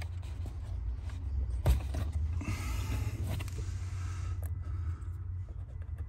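Plastic fuse puller working a blown blade fuse out of a Toyota Tacoma's under-dash fuse box: a sharp click nearly two seconds in, then a scraping sound over the next second or so. A low steady rumble runs underneath.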